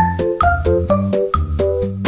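Background music with a steady beat and short, bright melodic notes over a bass line.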